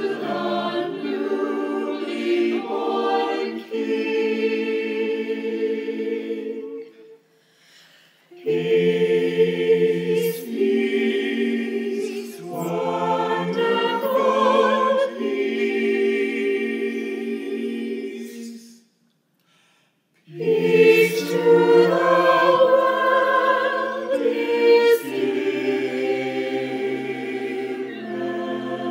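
Mixed choir of men's and women's voices singing a slow hymn in harmony, in long held chords. The singing stops twice for a second or two between phrases.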